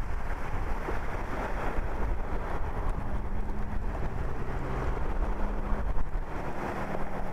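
Pickup trucks driving through deep, slushy floodwater, their tyres throwing up water in a steady rushing splash, with wind buffeting the microphone. A steady engine hum comes in about three seconds in.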